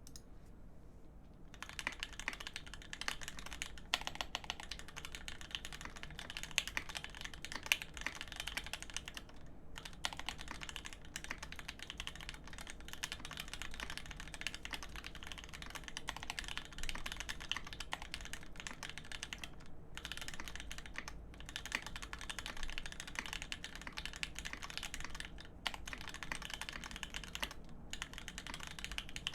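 Custom GEON F1-8X mechanical keyboard being typed on at a fast, steady pace: a dense run of key clacks from Telios v2 switches with 75 g springs on an aluminium plate under G80-2551 keycaps. The typing starts about a second and a half in and has a few brief pauses.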